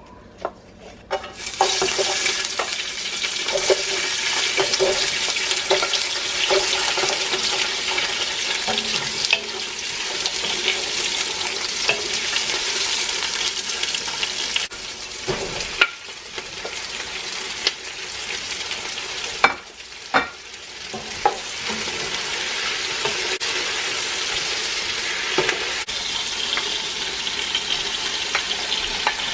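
Food sizzling in a hot pan as it is stirred, with a few sharp clacks of the utensil against the pan and a short lull about twenty seconds in.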